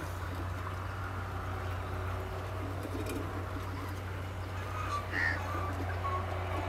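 Rural outdoor ambience with birds chirping briefly about five seconds in, over a steady low hum.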